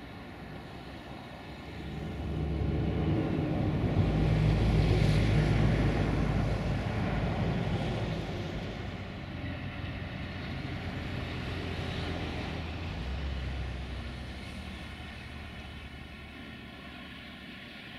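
Diesel locomotive engine running with a steady low hum. It grows louder about two seconds in, eases off, swells again briefly around the middle, then fades.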